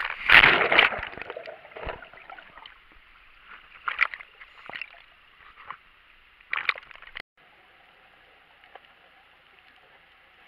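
Sea water splashing and sloshing against a waterproof camera housing held at the surface, loudest in the first second, with further splashes every second or two. It cuts off abruptly about seven seconds in, leaving a faint steady hiss.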